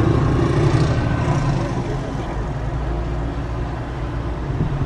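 Steady low rumble of a car driving on the highway, heard from inside the cabin: engine and road noise.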